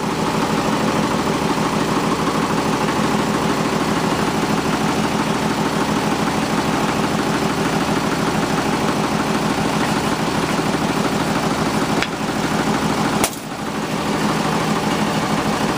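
A loader's engine idling steadily, with one sharp knock near the end.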